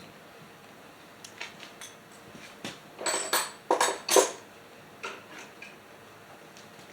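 Metal tools and small parts clinking and knocking against each other and a hard surface, with a cluster of louder clatters in the middle.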